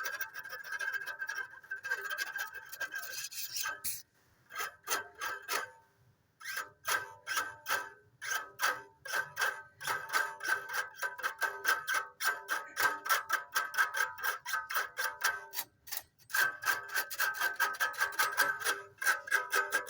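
A small cowbell being shaken, its clapper striking several times a second and ringing on one steady metallic pitch; the ringing stops briefly a few times.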